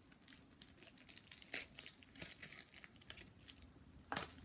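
Small plastic glitter packet crinkling and tearing open: a string of faint, quick crackles, with a sharper crackle near the end.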